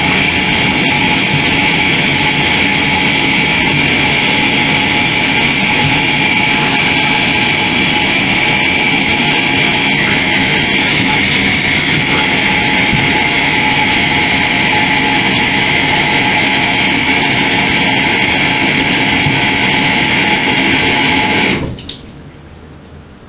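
Tap water running hard into a bathroom sink, a loud steady rush with a faint high whistle in it, shut off suddenly near the end.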